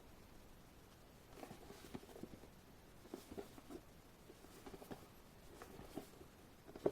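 Faint, scattered taps and rustles of an album box and its contents being handled, in small clusters every second or so.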